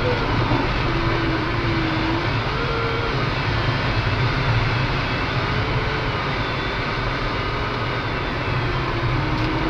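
Steady rush of airflow over a glider's canopy as it circles in a thermal, with a faint variometer tone that slides slowly up and down in pitch as the climb rate changes.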